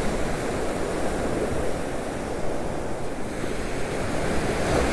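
Atlantic surf breaking and washing up a sandy beach in a steady rush, with wind buffeting the microphone.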